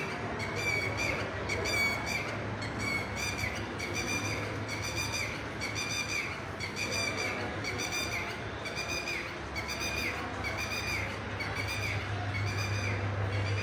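A bird calling over and over in an even rhythm, about three short calls every two seconds, over a steady low hum.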